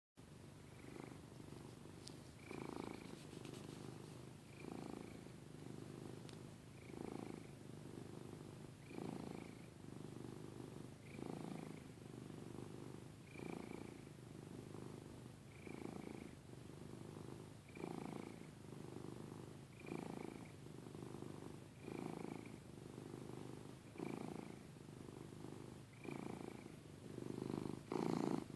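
Domestic cat snoring, a soft snore that swells with each breath about every two seconds over a steady low rumble.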